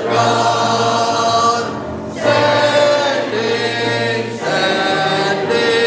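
Church congregation singing a hymn together in long held notes, with short breaks between phrases about two seconds in and again past four seconds.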